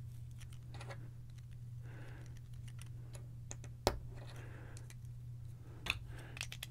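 Small plastic clicks and taps of LEGO bricks being handled and pressed onto a vintage LEGO tipper truck, with a sharper click about four seconds in, over a faint steady low hum.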